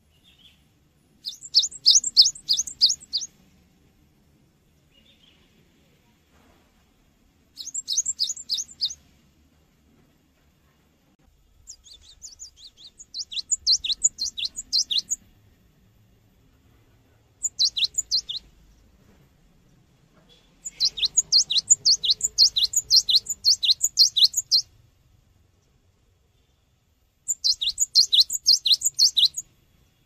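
Cinereous tit (gelatik batu) singing: six bursts of quick, high, repeated notes, each note sliding down in pitch, the bursts one to four seconds long with short pauses between them.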